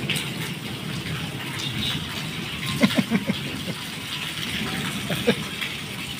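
Heavy rain pouring steadily onto a wet concrete courtyard and a person bathing in it, with a few brief sharp slaps about three seconds in and again about five seconds in.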